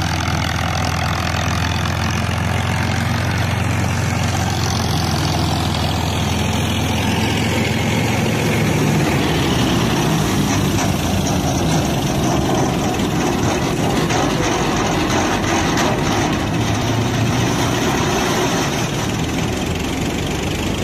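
Farmtrac 60 diesel tractor running steadily under load while it drives a Vishwakarma 741 straw reaper, whose spinning cutter, threshing drum and blower add a dense, even rushing noise over the engine's low hum.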